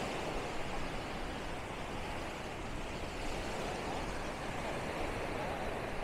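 Steady wash of low surf breaking along a sandy shore, with wind rumbling on the microphone.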